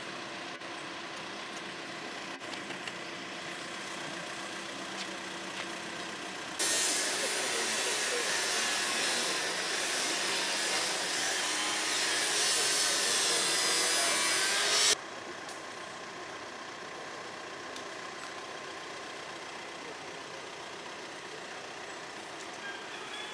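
A power saw cutting for about eight seconds: a loud, harsh rasp that starts and stops abruptly, over a steady low background hum.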